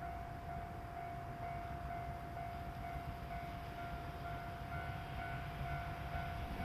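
Level-crossing warning bell ringing steadily, about two rings a second, over the low rumble of wind on the microphone.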